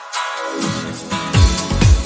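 Background electronic dance music; a deep, regular kick-drum beat comes in about two-thirds of the way through.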